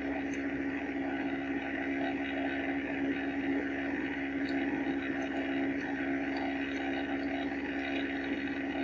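Steady background machine hum on the microphone, with one strong unchanging tone and a light hiss.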